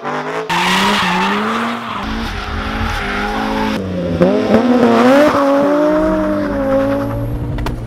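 A car engine revving up and down over tyres squealing and skidding in a drift.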